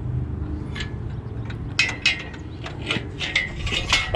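Scattered sharp metallic clinks and ticks of tools and parts being handled under a car, coming thicker in the second half, over a steady low rumble.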